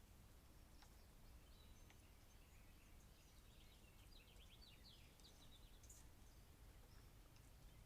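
Near silence with a low steady background rumble; faint bird chirps, a quick run of short notes in the middle.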